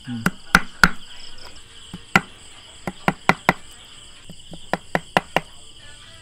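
Cleaver chopping small fish on a concrete block: a dozen or so sharp chops in irregular clusters. Insects chirp steadily underneath.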